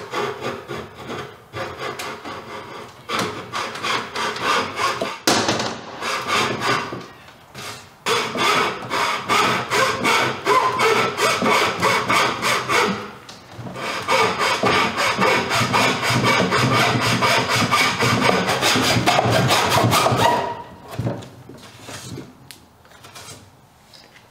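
Hand hacksaw cutting through a plywood panel in quick, even back-and-forth strokes, with a couple of short pauses. The sawing stops about 20 seconds in, leaving only faint scattered handling sounds.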